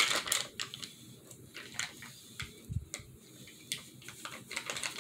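Freezer paper crinkling briefly at the start, then scattered soft clicks and rustles as the sheet is handled.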